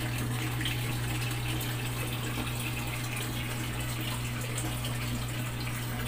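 Aquarium filter or pump running: steady flowing, splashing water over a constant low motor hum.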